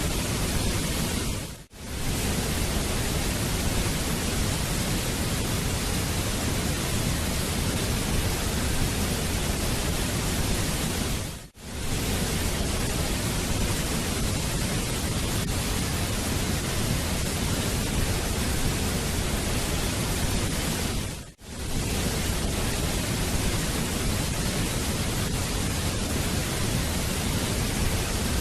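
Waterfall: a steady, dense rush of falling water. It drops out briefly three times, about ten seconds apart, where the short recording loops.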